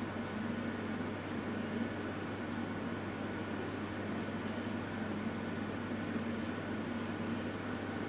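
Gas heater running steadily: an even hiss with a low, constant hum beneath it.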